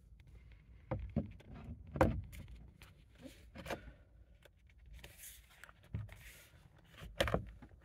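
Handling noises as a steering wheel is worked onto the steering column shaft: a few scattered sharp knocks and clicks, loudest about two seconds in and near the end, with a faint rustle in between.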